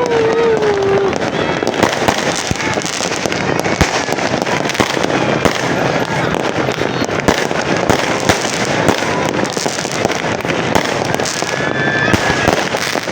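Fireworks going off in rapid, continuous succession: a dense mass of pops, bangs and crackling with no pause.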